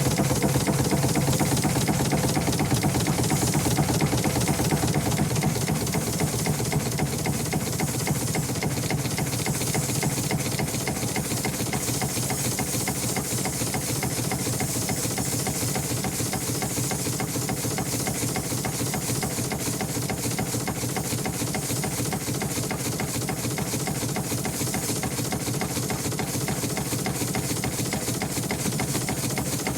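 An engine running steadily with a fast, even pulse of firing strokes and a hiss above it. It is a little louder over the first ten seconds or so, then holds steady.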